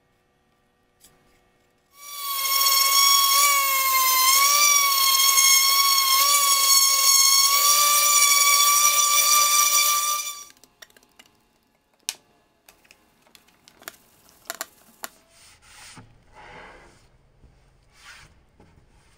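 A shop tool runs with a loud, high-pitched whine whose pitch wavers slightly, starting about two seconds in and cutting off after about eight seconds. Faint knocks and soft rubbing follow.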